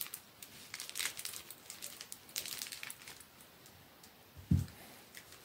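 Clear plastic wrapping crinkling in irregular bursts as hands handle a wrapped lucky bamboo bundle, followed about four and a half seconds in by a single short low thump.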